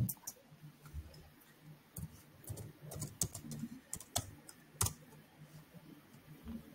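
Typing on a computer keyboard: irregular sharp keystroke clicks, a few at a time with short gaps between.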